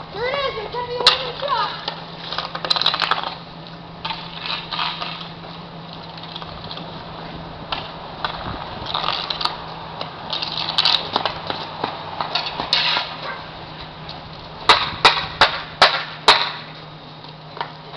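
Road hockey being played: hockey sticks clack on the ball or puck on pavement, with a quick run of about six sharp taps near the end. Voices call out now and then.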